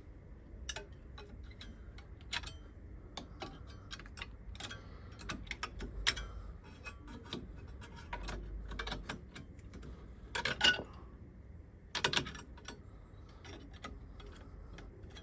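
Light metal clicks and taps as a brake pad retaining clip is pushed and worked into place on a disc brake caliper, with two louder metallic clatters about ten and twelve seconds in.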